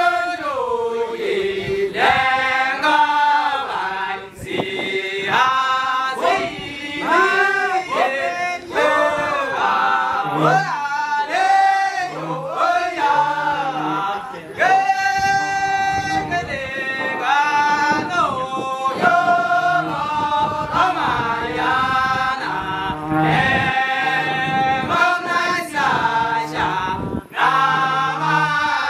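Group of young Maasai men singing a folk song in chorus, the voices gliding up and down in pitch. From about ten seconds in, a short low part repeats at an even pace beneath the melody.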